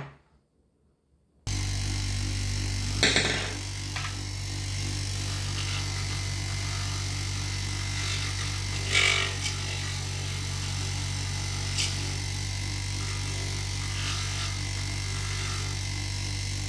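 Small electric bench grinder fitted with a sanding pad, starting abruptly about a second and a half in and then running with a steady hum. A stone held against the spinning pad gives a few short grinding scrapes while it is being sanded and polished.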